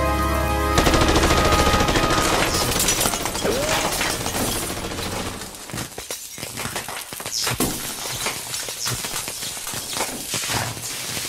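Sound effects: a held music chord breaks off under a dense run of rapid sharp cracks and pops with glassy breaking sounds. After about five seconds this thins into scattered cracks and a few quick whizzing sweeps.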